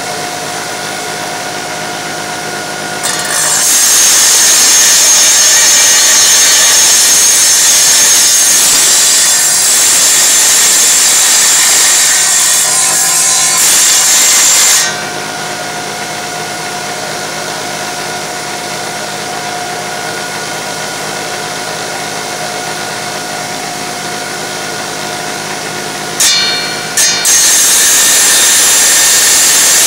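Wet tile saw cutting a tile piece, clearing out the last of a corner. The motor runs steadily with a level hum. The blade bites into the tile in two long, loud passes, from about three seconds in to about fifteen, and again near the end.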